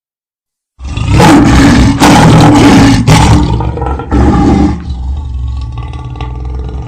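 Lion roaring: a loud, deep roar starts about a second in and lasts some four seconds, then trails off into quieter, lower rumbling.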